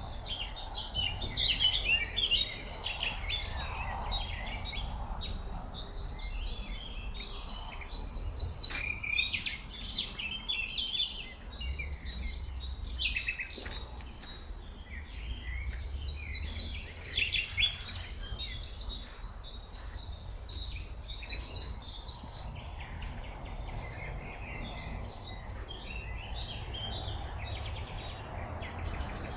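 Several songbirds singing and calling in dense, overlapping chirping phrases, busiest in the first few seconds and again about halfway through, over a low steady rumble.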